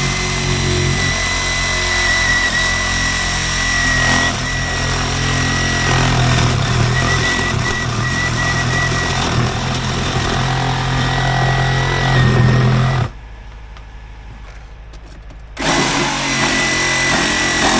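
Red cordless power saw running steadily as it cuts into a tire on a wheel, with a steady high whine. It stops about thirteen seconds in and starts again about two and a half seconds later.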